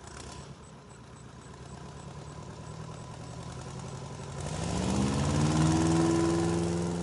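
Airboat engine idling, then revving up about four seconds in: the pitch rises and levels off higher, and the engine grows much louder as the propeller blows spray across the water.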